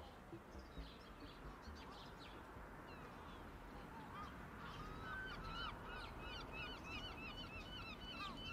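Faint outdoor ambience: a steady low hiss, then from about four seconds in a flock of birds calling, several short rising-and-falling calls a second.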